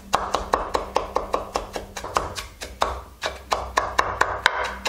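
Chef's knife rapidly mincing garlic and carrot on a wooden cutting board, an even run of quick knocks about six a second.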